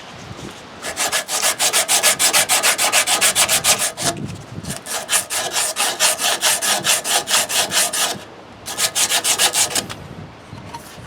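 Rapid back-and-forth scrubbing by hand on the mower's wheel parts, about eight strokes a second, in three spells with short pauses between them.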